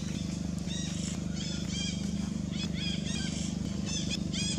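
A quick run of short, high, rising-and-falling chirping calls from an animal, about three a second, over a steady low hum.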